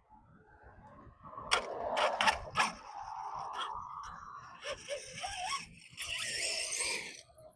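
Losi DBXL-E 2.0 1/5-scale electric RC buggy driving off: a motor whine builds over the first couple of seconds, with several sharp clicks. Near the end comes a burst of hiss as the tyres throw up loose dirt.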